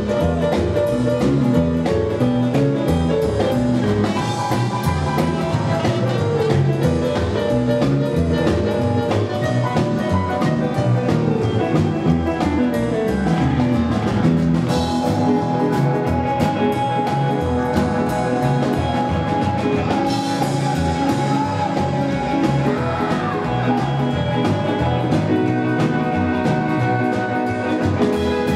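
Live rockabilly band playing an instrumental passage with no singing: drum kit, upright bass, guitar and electric piano keyboard.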